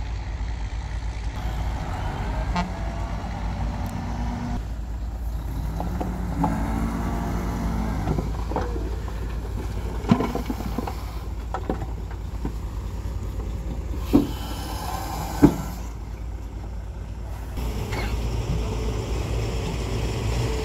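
Heavy dump truck's diesel engine running under load while the hydraulic hoist tips the bed and soil and rock spill out, its pitch rising and falling a few seconds in. Three sharp knocks in the second half.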